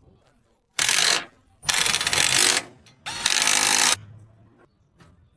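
Harsh mechanical rattling grind from an e-rickshaw, coming in three short bursts of under a second each: the abnormal noise the rickshaw is being checked for.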